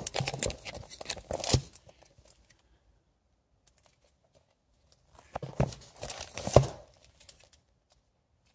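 Comic books being handled and laid out, rustling and crinkling in two spells: one in the first second and a half, one from about five to seven seconds in.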